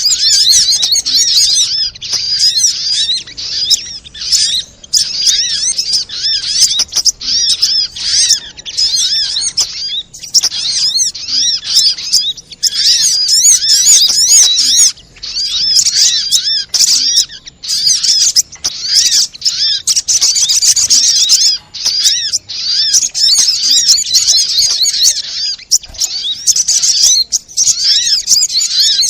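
Sogon sunbird calling and chattering without pause, rapid high-pitched chirps and twitters packed close together with a few short breaks. This is a lure recording meant to set a caged sogon singing.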